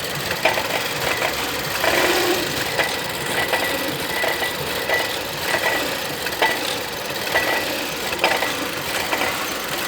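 2011 Volvo S60 T4's 1.6-litre turbocharged four-cylinder engine running, with an irregular clicking knock and a faint high tone that comes and goes. This is the strange noise that grows with a light touch of the throttle: the owner suspects an engine mount, and it seems to come from the belt-driven pulleys on the left, under the turbo pipe.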